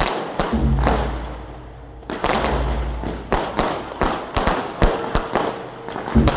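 Fireworks going off: a rapid string of sharp bangs and crackles that thins out for a moment about a second in, then picks up again thickly from about two seconds in.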